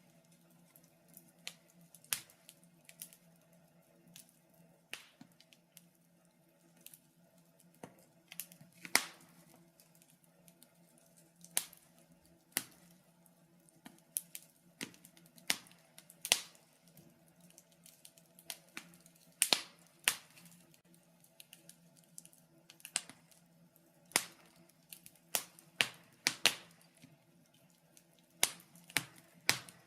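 Wood fire in a fireplace crackling, with irregular sharp pops and snaps of varying loudness over a faint steady low hum.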